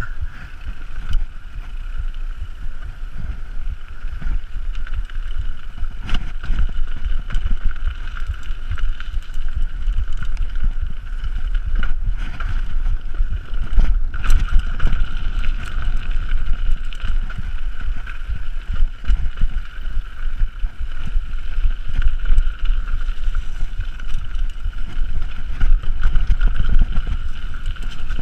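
Mountain bike riding down a dirt forest trail: tyre and suspension rumble with scattered knocks and rattles from roots and rocks, and wind on the microphone. A steady high-pitched buzz runs under it throughout.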